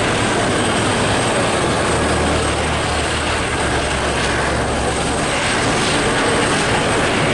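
Eurocopter EC120 Colibri helicopters running on the ground, turbines and rotors turning, a steady loud engine and rotor noise with a low hum beneath it.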